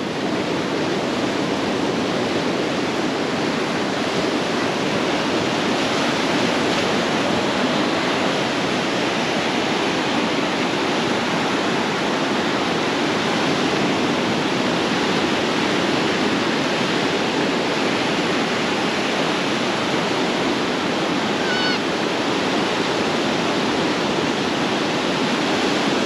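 Steady rushing water, an even unbroken wash without clear surges. A brief faint high chirp near the end.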